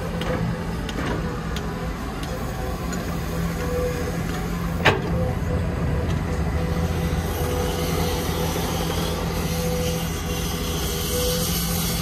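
Heavy construction machine's diesel engine running steadily, with a single sharp knock about five seconds in and a hiss building in the second half.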